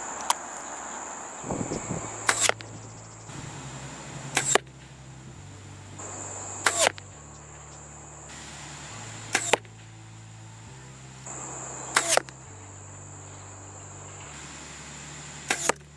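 Arrows shot from a bow one after another, six sharp shots a couple of seconds apart, each a quick double crack of the release and the arrow hitting the target. The arrows carry different fletchings and vanes, shot to compare how quietly each flies. Crickets trill steadily behind.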